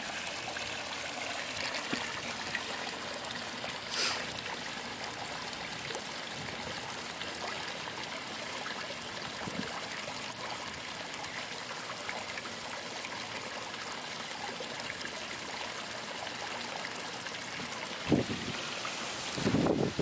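Steady splashing trickle of water spilling from a raised spa over its edge into a swimming pool. Near the end there is a single sharp knock, louder than the water.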